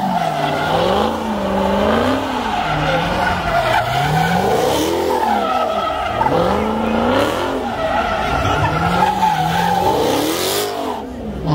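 A car doing donuts: its engine revs up and down again and again, the pitch swinging every second or two, while the spinning tyres squeal and skid.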